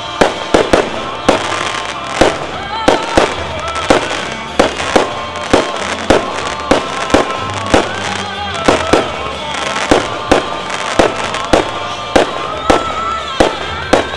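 Aerial firework shells bursting one after another, about two bangs a second, over music.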